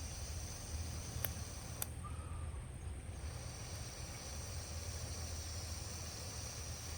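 Insects trilling steadily in a high pitch, breaking off for about a second a couple of seconds in, with two sharp crackles from the burning wood of the bonfire in the first two seconds, over a low steady rumble.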